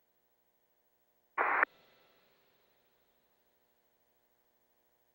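Faint steady hum on a radio voice loop, broken about one and a half seconds in by a single short burst of radio static, a quarter-second squelch as a transmitter keys up and drops.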